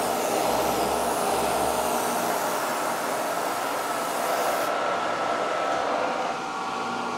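Milling machine running with a steady hiss of air-mist coolant spraying at the end mill. The highest part of the hiss cuts off suddenly about two-thirds of the way through, leaving the machine's lower running noise.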